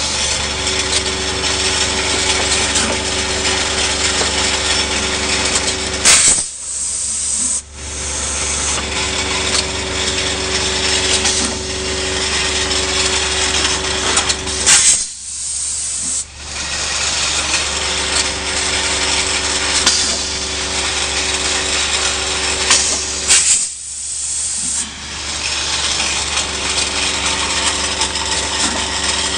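Rotary premade-pouch paste filling and sealing machine running: a steady mechanical hum with a constant low tone, and a few short, louder hiss-like bursts from its pneumatic cylinders. The sound breaks off abruptly a few times.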